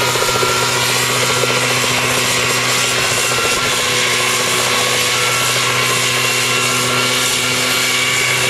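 Homemade single-seat helicopter running, its engine at a steady pitch and its rotor spinning, loud and unbroken.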